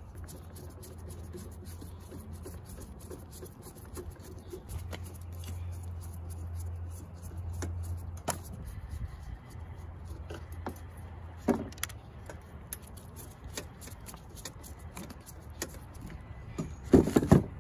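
Small clicks and metallic knocks of a screwdriver and hands working on a car audio amplifier's sheet-metal case as it is dismantled, with a cluster of louder knocks near the end, over a steady low hum.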